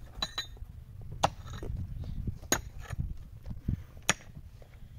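Four sharp clicks or clinks, irregularly spaced about a second or more apart, over a low, steady rumble.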